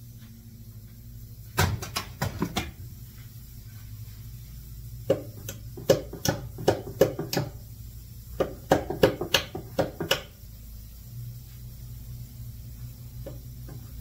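Hammer striking a pine-board box in three quick runs of blows, about three strikes a second and six or seven strikes per run, followed by a couple of light taps near the end.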